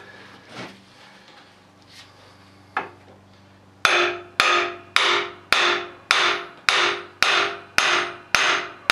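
A hammer striking metal in a steady run of about nine ringing blows, roughly two a second, after one lighter knock near three seconds in. The blows are tapping a Cummins diesel's injector pump to work it loose.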